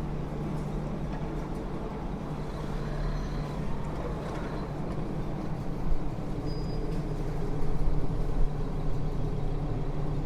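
Heavy diesel engine running steadily, with wind rumbling on the microphone; the engine grows a little louder near the end.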